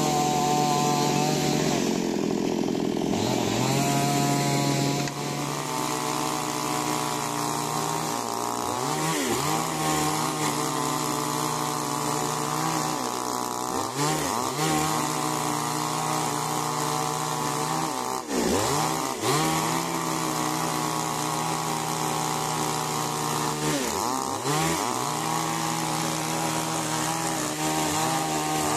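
Two-stroke chainsaw running at high revs while cutting wood. Its engine note dips briefly and picks back up about four times.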